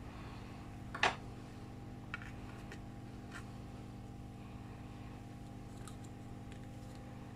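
Light clicks and taps of hand tools against a laptop motherboard and workbench: one sharp click about a second in, then several fainter ticks. A steady low electrical hum runs underneath.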